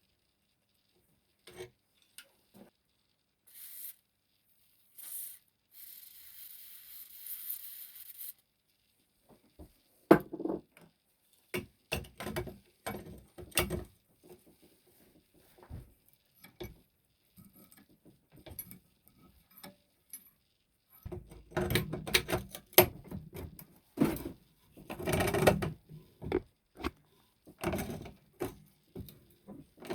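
Hand tools and metal exhaust parts clinking, knocking and scraping in irregular bursts during work on stuck bolts, with a short hiss about six seconds in.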